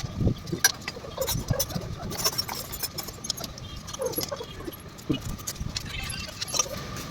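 Irregular metallic clinks and knocks, like hand tools and metal parts being handled, with a faint steady hum underneath.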